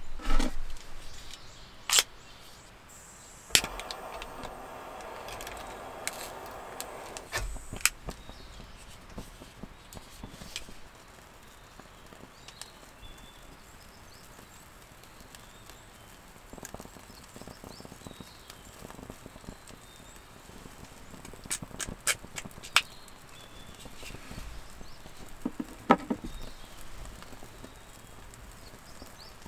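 Quiet room tone broken by scattered light clicks and knocks from hands handling small cooking gear. A quick run of sharp clicks about three quarters of the way through fits a gas lighter being sparked to light a pocket stove.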